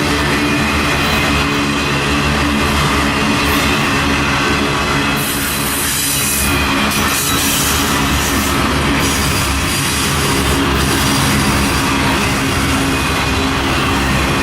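Freight train passing close by: diesel locomotive engines running steadily under the hiss of steel wheels on the rails, with the wheel noise swelling for several seconds midway.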